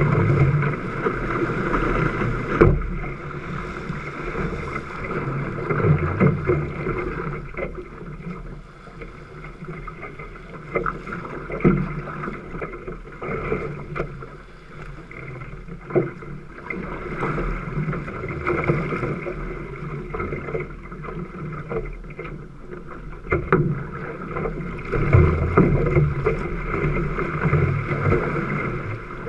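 Water rushing and slapping along the hull of a one-person outrigger canoe moving through wind chop, rising and falling irregularly, with a few sharp knocks and splashes and bouts of low wind rumble on the microphone.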